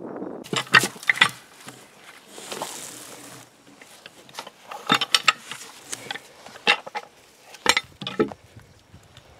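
Irregular clinks and knocks of a metal log hook on a pole biting into and levering freshly cut logs, with a short scraping rustle about two to three seconds in.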